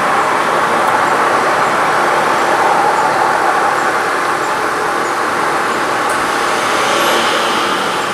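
Steady road traffic noise: a Ford Galaxie 500 pulling away slowly, with vans driving past, a continuous mix of engines and tyres with no single sharp event.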